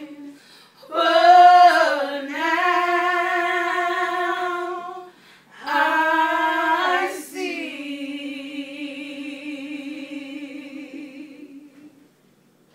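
Three women singing a cappella together, in phrases of sustained notes with vibrato. The last note is held for several seconds and fades out near the end.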